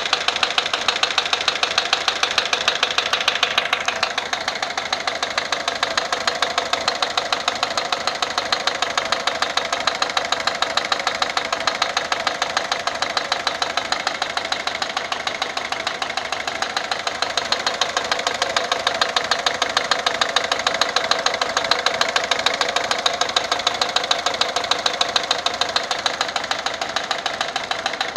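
Peugeot 407's 1.6 HDi four-cylinder diesel engine idling with a regular knocking tick, about four a second: the abnormal noise that appeared after an oil change.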